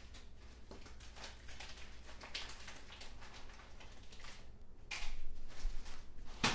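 Light clicks and rustles of spice containers being handled and set down, with one sharp knock near the end.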